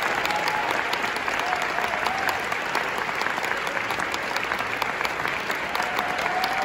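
A large theatre audience applauding steadily through a ballet curtain call.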